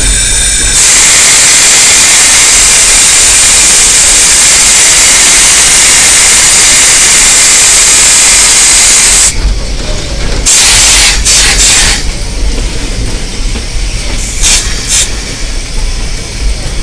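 Steam hissing loudly from narrow-gauge steam locomotive No. 190, heard from inside the cab: a steady blast that cuts off about nine seconds in. Several short bursts of steam follow.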